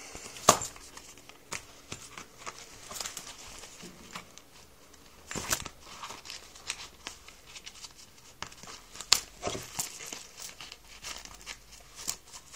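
Handling noise of a wallet and a plastic credit-card-shaped folding knife (CardSharp) being slipped into the wallet: scattered rustling and crinkling with a few sharp clicks and taps.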